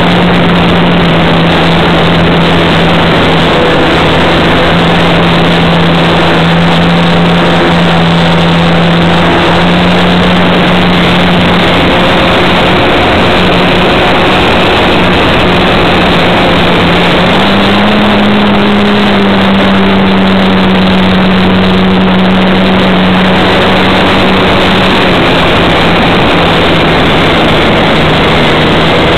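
RC model Cessna's motor and propeller running steadily in flight, heard from the onboard camera under heavy rushing air noise. The pitch rises slightly about 17 seconds in, as the throttle opens a little, then settles back.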